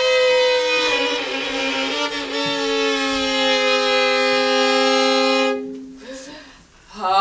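Slow music of long, held bowed-string notes, changing pitch every second or so and stopping about five and a half seconds in.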